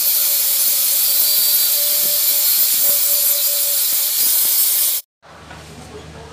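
Angle grinder with a thin abrasive disc grinding a weld on a steel square-tube frame: a loud, steady hiss of disc on metal with a faint whine, stopping abruptly about five seconds in.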